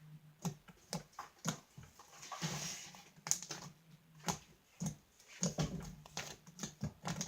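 Fluffy slime of glue, shaving gel and borax being squeezed and worked by hand, giving irregular sticky pops and clicks as air bubbles in it burst, with a longer squelch about two and a half seconds in.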